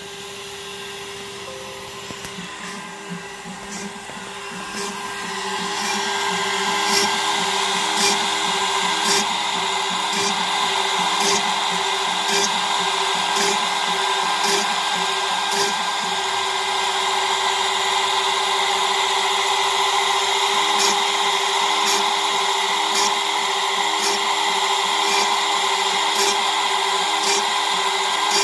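A 2 hp CNC router spindle running with a steady whine while a small bit cuts rows of holes into MDF. The cutting noise gets louder about five seconds in, with a sharp tick roughly once a second as each hole is plunged.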